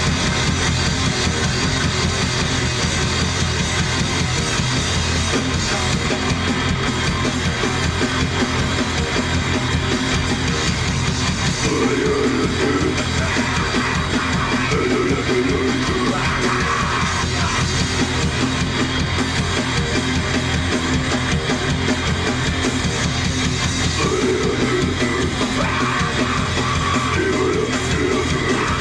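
Live heavy rock band playing loud and without a break: distorted electric guitar over a drum kit, with a denser, louder mid-range stretch about halfway through and again near the end.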